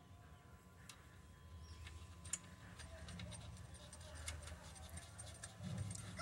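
Faint, scattered light metal clicks as the clutch-centre nut is fitted by hand onto the clutch shaft of a Bajaj mototaxi engine, over a low steady hum.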